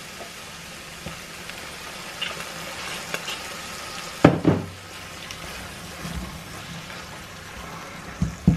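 Spinach and shallot mixture sizzling steadily in a frying pan as a splash of white wine is poured in to deglaze it, then stirred with a silicone spoon. There is a short clunk about four seconds in and a couple of sharp knocks near the end.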